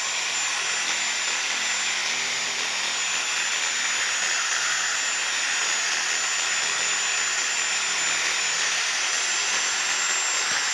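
Power saw running steadily while cutting through a tree branch: a continuous high-pitched whine over a hiss that cuts off shortly after the end.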